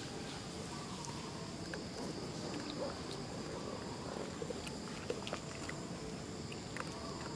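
Outdoor ambience of insects droning steadily at a high pitch, with scattered faint clicks.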